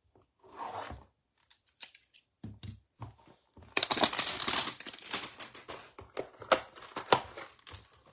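A hanger box of trading cards being torn open and emptied: cardboard and plastic wrapper tearing and crinkling, with a louder rip lasting about a second near the middle, followed by crackling rustles.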